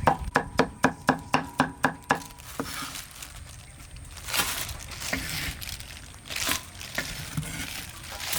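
Knife chopping on a cutting board, a fast even run of about five strokes a second that stops about two seconds in, followed by slower, irregular scraping and rustling.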